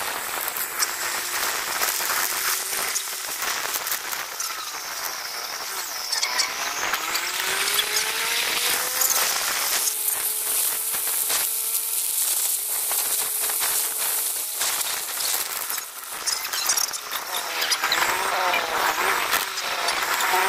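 Motorcycle tricycle on the move: its small motorcycle engine running under a steady rush of wind and road noise, the engine's pitch rising and falling a few times as it speeds up and eases off.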